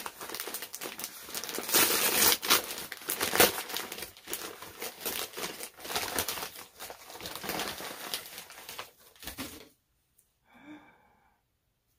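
Gift wrapping paper crinkling and tearing as a present is unwrapped, a dense run of crackles and rips that stops near the end.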